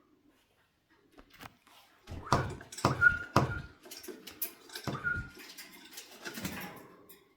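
Cockatiels giving a few short high peeps amid a run of thumps and rustling, about five knocks spread over some five seconds, starting about two seconds in.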